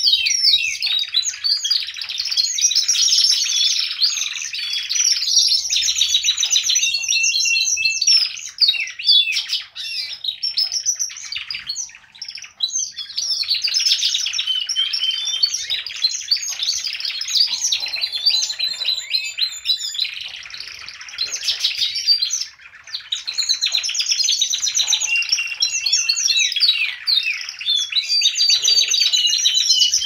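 Caged domestic canaries singing long, rapid rolling trills and repeated chirps almost without pause, with a few brief breaks. This full song is the sign the uploader takes to mean the birds are all males.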